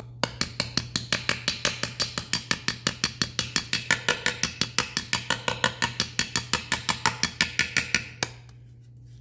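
Small hammer tapping rapidly on an aluminum seat molding backed by a small anvil, beating dents out of the trim. There are about six light, ringing metallic taps a second, and they stop abruptly about eight seconds in.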